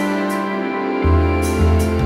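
Background music: a calm instrumental track with sustained tones, a bass line and light percussion hits. The bass drops out briefly and comes back about a second in.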